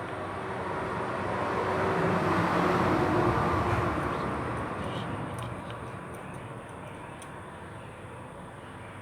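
A vehicle passing by, rising to a peak about three seconds in and then fading away, with a few small clicks as it fades.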